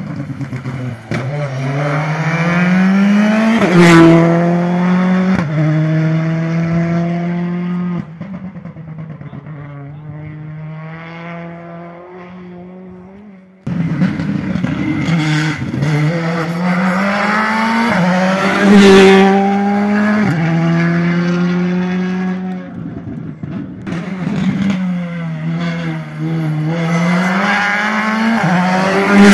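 Rally cars at full speed on a tarmac stage: engines revving hard, the pitch climbing and dropping sharply with each gearchange. One car fades away and the sound cuts off suddenly, then another car's engine comes in loud and rises as it approaches.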